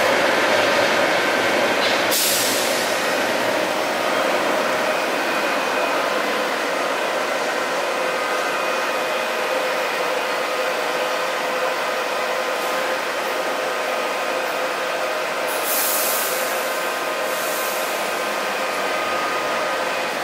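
Electric light-rail trains in a station: a steady rumble with several whining tones from the trains' running gear and traction equipment. Short hisses of air come about two seconds in, and again around sixteen and seventeen seconds.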